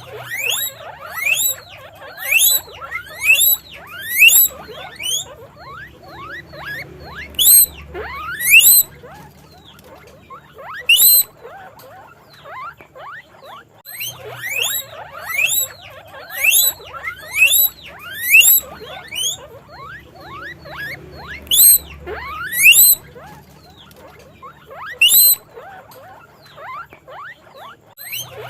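Guinea pig wheeking: loud, repeated rising whistled squeals, coming in runs of about one a second, with fainter squeaks in between.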